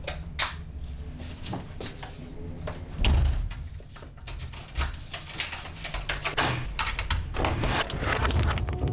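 Flat front door being handled and shut, with a heavy thud about three seconds in, among clicks, knocks and footsteps. A low steady hum runs underneath.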